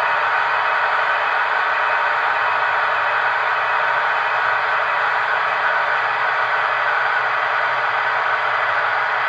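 Märklin HO model electric locomotives, an SBB Re 460 and a BLS Re 465 fitted with ESU sound decoders, running slowly side by side: a steady hiss of electric-locomotive running sound from their small loudspeakers, with little bass.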